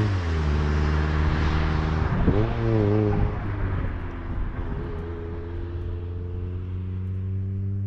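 Turbocharged Mazda Miata's four-cylinder engine driving away after a pass: its note drops in pitch at first, rises and falls briefly about two to three seconds in, then holds steady while it slowly fades with distance.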